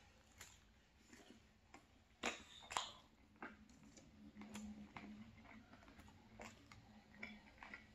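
Quiet chewing of a mouthful of chicken 65, with scattered wet mouth clicks and a few sharper clicks from a plastic fork against the plate while rice is scooped.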